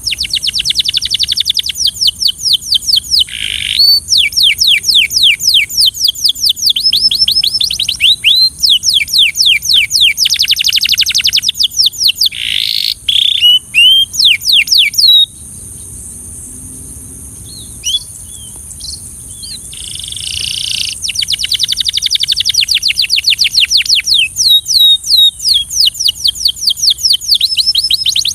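Canary singing: long, fast trills of quickly falling notes in rolling phrases. The song breaks off for a few seconds past the middle and then starts up again.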